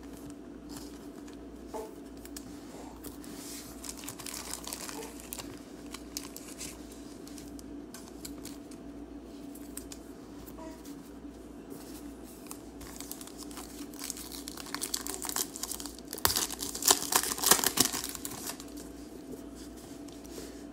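Crinkling of a clear plastic wrapper and rustling of trading cards as they are handled and flipped through. A denser, louder spell of crinkling comes about three quarters of the way in.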